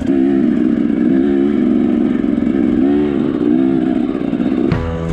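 Enduro motorcycle engine running under way, its revs swelling up and down every second or so. Near the end it gives way abruptly to music.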